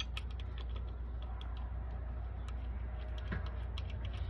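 Scattered light clicks and taps of small metal parts and hand tools as the primary derby cover and its screws go back on a motorcycle, over a steady low hum.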